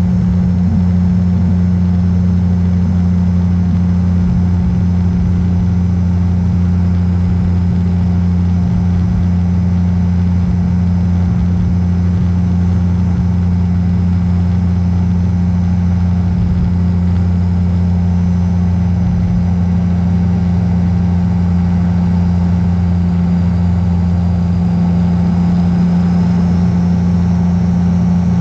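Beaver RX 550 ultralight's engine and pusher propeller running loud and steady in cruise flight, one unbroken drone.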